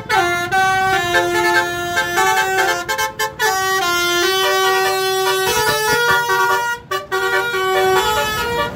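Bus telolet horn, a multi-tone air horn, playing a quick tune of stepped notes, with two short breaks about three and seven seconds in.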